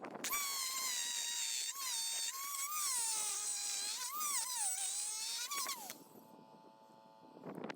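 A handheld high-speed power tool whining as it cuts into the steel of a pumping-unit gearbox's bearing housing, its pitch dipping and recovering several times as the load changes. It winds down and stops about six seconds in.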